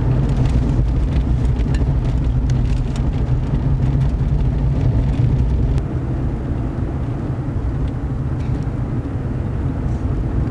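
Low, steady rumble of a car driving, heard from inside the cabin, starting abruptly and easing off a little about six seconds in.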